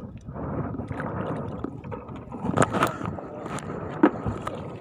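Shallow seawater sloshing and splashing as someone wades and works with their hands in it, with several sharp splashes between about two and a half and four seconds in.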